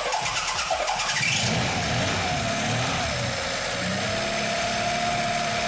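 Four-cylinder car engine running with compression gauges screwed into its cylinders: ragged and uneven for the first second or so, a quick rise in pitch, then settling into a steady run with a held tone over it.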